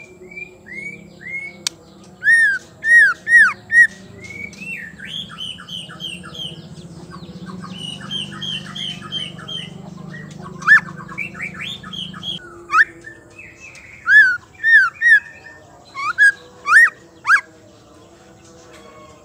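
White-rumped shama calling: loud, arched whistled notes in quick runs of three or four, between stretches of softer rapid chattering notes.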